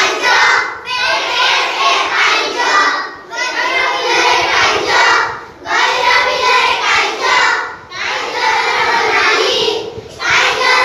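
A group of young schoolchildren singing a rhyme together in unison, in short phrases of about two seconds with brief breaths between them.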